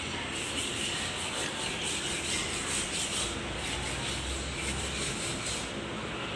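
Steady rubbing, scraping noise with a faint low hum underneath.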